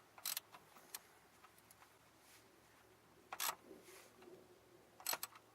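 A few short, sharp clicks and knocks, four or so spread apart, from tools and parts being handled while a starter is fitted, over a faint quiet background.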